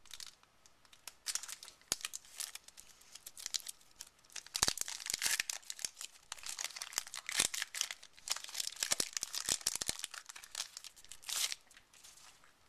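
Foil booster pack wrapper being crinkled and torn open by hand, in irregular crackling bursts, with sharp clicks as the wrapper and cards are handled.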